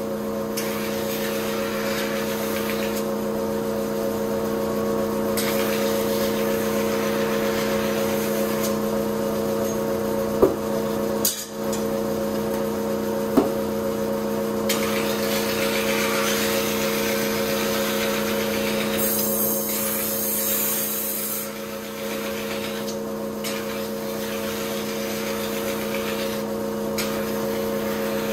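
Kitchen knife being ground on a motor-driven rotating whetstone: a steady machine hum under a grinding rasp that changes every few seconds as the blade is moved and pressed. Two sharp clicks about ten and thirteen seconds in.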